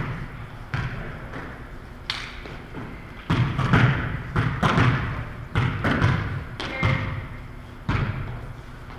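A volleyball thudding on the gym floor and off players' hands in a dozen or so irregular knocks, each echoing through the hall.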